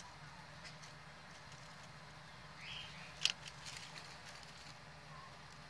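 Faint rustling of dry leaves and grass as a small kitten moves about, with scattered light ticks and one sharper click a little past three seconds in.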